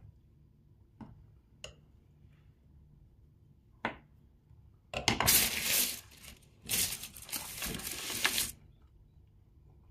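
Kitchen handling noise at a cutting board: a few light knocks, then two loud, noisy clattering stretches of about one and two seconds halfway through.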